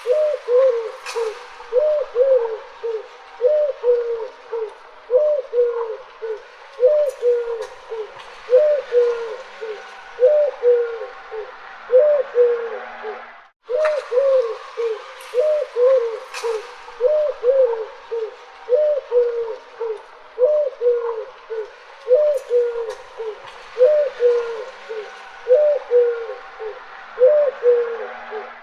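Mourning dove cooing: a long series of low, soft coo notes, each rising and falling in pitch, with faint chirps from other birds behind. There is a brief gap in the middle.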